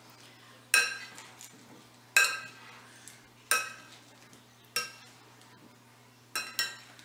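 Metal spoon stirring chopped apples in a glass bowl, clinking against the glass about six times, roughly every second and a half, each clink ringing briefly.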